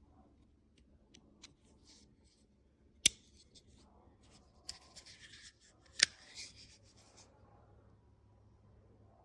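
Small folding pocket knife being worked by hand: two sharp snaps about three seconds apart, the blade locking open or shut, with lighter ticks and scraping, rubbing handling noise between them.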